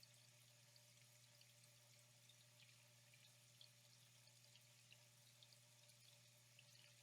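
Very faint trickling water with many small scattered drip-like ticks, over a steady low hum.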